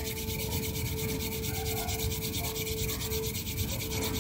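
Two palms rubbed briskly together, a steady back-and-forth swishing of skin on skin.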